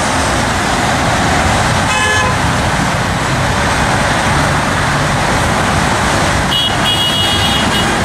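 Steady roar of heavy multi-lane highway traffic passing below, with a short car-horn toot about two seconds in. A high, steady tone starts near the end.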